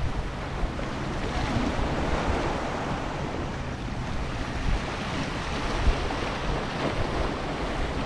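Sea waves washing against shoreline rocks, with wind rumbling on the microphone.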